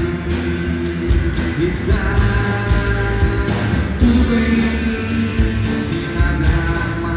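A live rock band playing: electric guitars over a drum kit keeping a steady beat with regular cymbal hits, with hand drums, loud.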